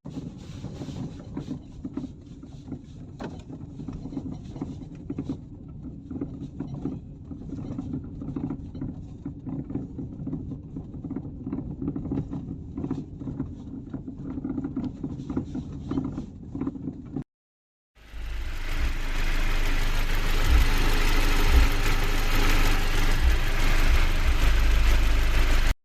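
Car sounds in two parts. First a steady low hum with many small ticks, then, after a short cut, a louder steady rushing noise with occasional low thumps.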